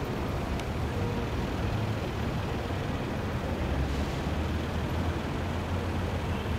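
Steady outdoor ambient noise with a low rumble and an even hiss, no distinct events.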